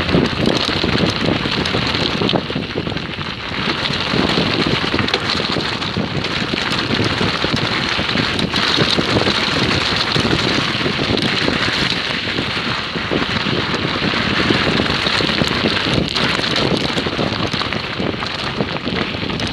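Tyres of a Lapierre electric mountain bike crunching over loose stones at speed, with wind rushing on the microphone and constant rattling from the bike on the rough track.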